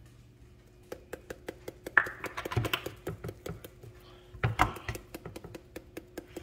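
Paprika spice jar being opened, tapped and shaken over raw chicken: a run of light clicks and ticks, with a few louder knocks about two seconds in and again after four and a half seconds.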